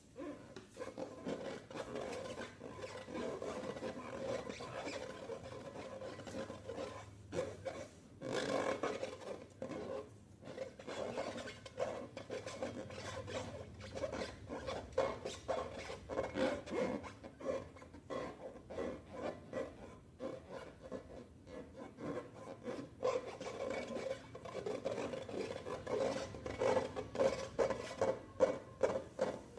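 Slime being mixed and worked by hand or tool: a continuous rubbing and scraping, thick with quick wet crackles.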